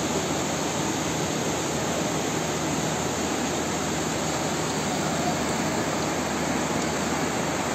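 Floodwater flowing through a street, making a steady, even rush.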